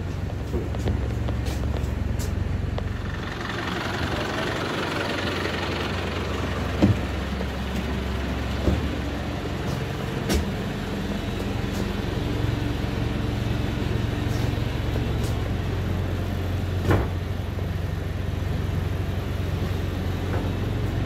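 An engine idling steadily with a low hum, heard from inside a bus. A hiss rises about three seconds in and fades over several seconds, and a few sharp knocks come through it.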